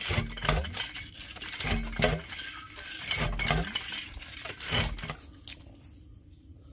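Borehole pipe being plunged up and down by hand to bore a hand-pump well: four strokes about a second and a half apart, each a metallic clank and thud with a splash of water and mud. The strokes stop about five seconds in.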